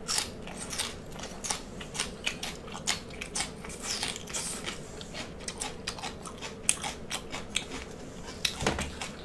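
Close-miked chewing of crisp garlic-sautéed water spinach (ong choy) stems: irregular wet crunches a few times a second, with a slightly louder one shortly before the end.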